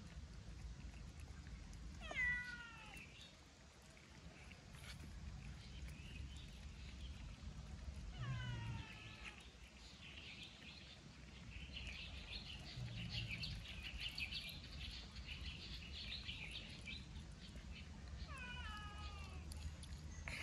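An animal's mewing cries, three of them, each falling in pitch: about two seconds in, about eight seconds in, and near the end. Between the second and third a rapid, high chattering runs for about five seconds.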